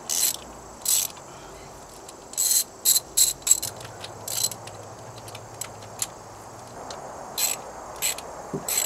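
Hand socket ratchet clicking in short bursts of strokes while backing spark plugs out of a Chevy 305 V8 marine engine. There are about nine bursts, several in quick succession in the first half, a pause, then two more near the end.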